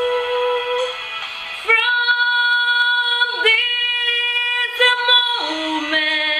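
Slow ballad music with long held melody notes, moving to a new chord about every two seconds.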